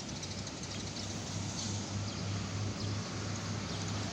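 Intercity bus engine running with a steady low hum, growing a little louder.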